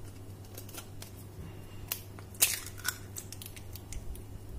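A hen's egg being cracked on the rim of a stainless-steel mixer jar and broken into rice batter: a few light taps, then a sharper crack about two and a half seconds in.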